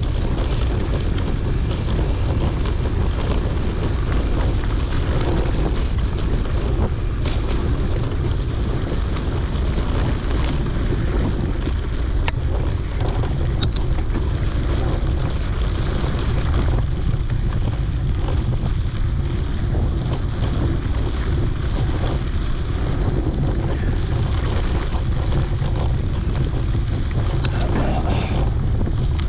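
Steady wind noise on a GoPro's microphone, with the rumble of a mountain bike's tyres rolling on a dirt trail and a few brief clicks.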